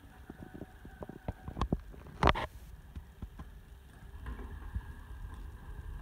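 Eufy RoboVac 30C robot vacuum with a low motor hum, scattered light knocks, and one louder brief thump about two seconds in.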